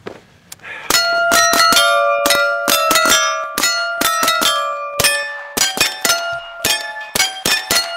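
Rifle bullets striking a row of hanging steel plate targets, each plate tuned to a musical note and ringing on after the hit, so that the string of hits picks out a Christmas carol melody. The hits start about a second in and come quickly, about three or four a second, with the ringing pitch changing from plate to plate.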